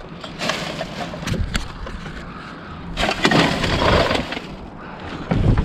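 Junk being rummaged through: hard objects clattering, knocking and scraping against each other, with a louder burst of clatter about three seconds in.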